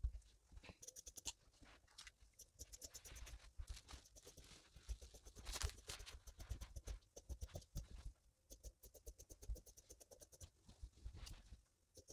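Faint rustling and scratching of satin fabric being smoothed and handled by hand, with many small clicks throughout and a longer rustle about halfway through.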